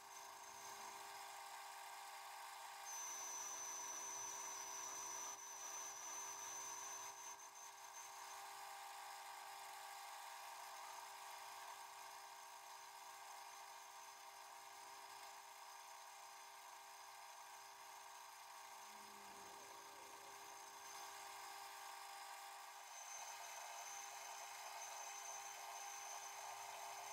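Metal lathe running while a boring bar takes a cut inside the bore of an ER32 collet chuck body. It gives a steady hum, with a thin high whine for a few seconds near the start and again near the end.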